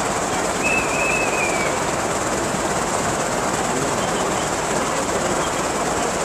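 Steady, dense background noise of a crowded city square, with a short high squeal about a second in.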